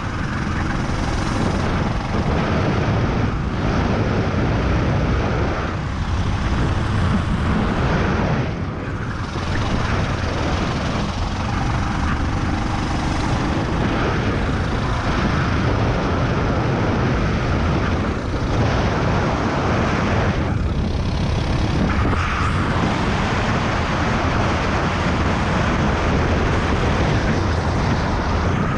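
Racing kart's engine running hard under load, heard from onboard, with a few brief dips as the driver lifts off for corners before it pulls again.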